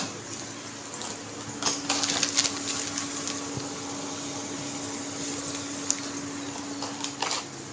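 Onions and spices frying in oil in a steel wok, with a metal spoon stirring and scraping the pan a few times, over a steady low hum.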